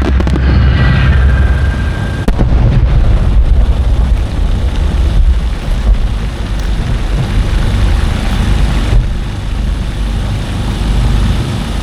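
Fireworks shells bursting in a string of sharp booms over a continuous deep, echoing rumble. Background music ends about two seconds in.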